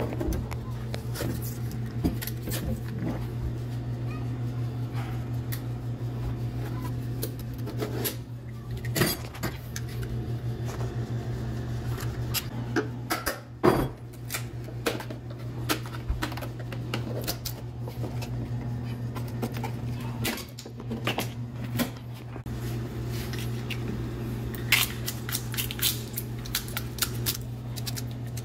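Flat pry bar levering wooden door casing off a door frame: scattered clicks, knocks, scrapes and cracks of metal on wood and nails giving way, the sharpest about halfway through. A steady low hum runs underneath.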